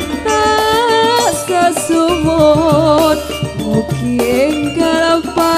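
Live campursari music: a woman's voice singing a Javanese song with vibrato over gamelan metallophones, kendang drum and bass guitar.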